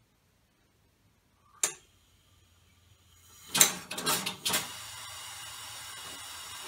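A sharp click, then compressed air let into a homemade six-cylinder air engine: a rising hiss, three loud blasts of air, then a steady rushing hiss.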